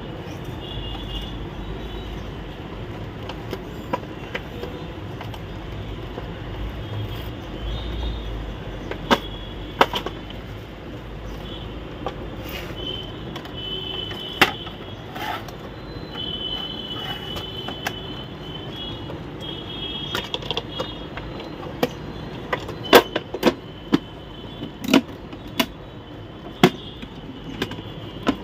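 Clicks and knocks of plastic printer parts, the Epson L3210's scanner unit and housing, being handled and separated by hand. They are scattered at first and come thicker and louder over the last few seconds, over a steady background rumble.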